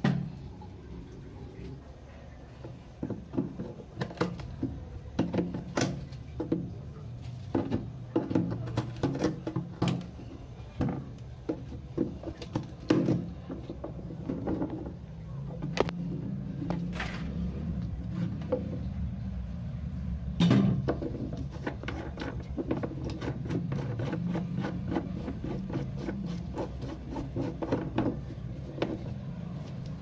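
Irregular clicks and knocks of plastic toilet-cistern flush fittings being handled and fitted, over a low steady hum.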